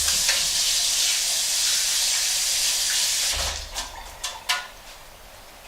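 Kitchen tap running hard into the sink for about three seconds, then shut off, followed by a few sharp clicks and knocks.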